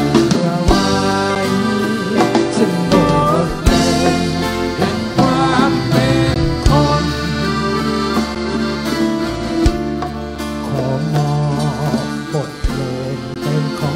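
A live band playing on stage: acoustic and electric guitars, drum kit and congas, with a sustained melodic lead line over a steady beat.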